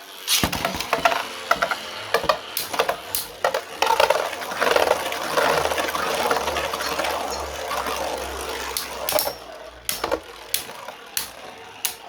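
3D-printed Beyblade spinning tops in a plastic stadium: sharp clicks and knocks, then about five seconds of the tops whirring and rattling against each other and the stadium, then scattered sharp clicks.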